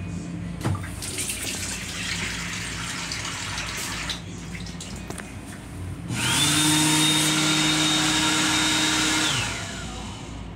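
A hiss for about three seconds. Then, after a short lull, the sensor hand dryer's blower motor spins up with a quickly rising whine, runs steadily with a high whine over a low hum for about three seconds, and winds down.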